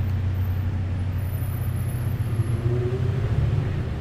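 Street traffic: a steady low engine rumble from a motor vehicle on the street, with a faint higher whine rising slightly in the second half.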